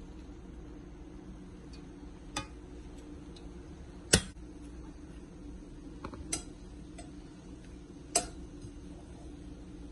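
A spoon knocking against a metal cooking pot a few times, about two seconds apart, while rice and cooked whole lentils are layered in; the loudest knock comes about four seconds in. A steady low hum runs underneath.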